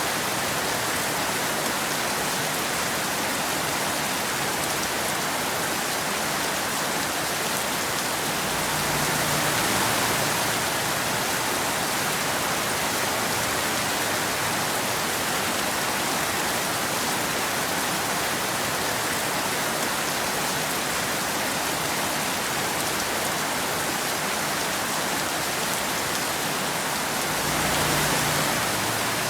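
Steady rain falling, an even hiss of drops. It swells a little twice, with a deeper rumble, about nine seconds in and again near the end.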